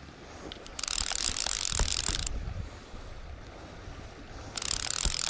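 Fly reel buzzing as a freshly hooked salmon pulls line off it, in two long runs: one about a second in and lasting about a second and a half, and another starting near the end.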